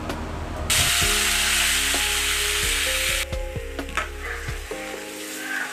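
Hot mustard oil and spices in a kadai sizzling as curd-and-gram-flour batter is poured in: a loud sizzle starts sharply under a second in, holds for about two and a half seconds, then dies down to a soft sizzle.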